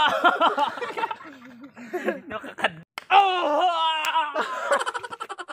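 A man laughing heartily in long vocal bursts, breaking into a quick run of short laugh pulses near the end.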